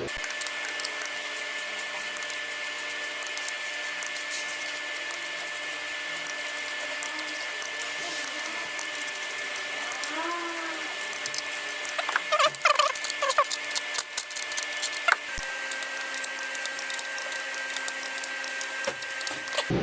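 Engine running with a steady whine and fast, light ticking, typical of a fuel-injected engine at idle, heard after an exhaust CVVT replacement. The whine's pitch shifts slightly about fifteen seconds in, and a few short squeaks come and go in the middle.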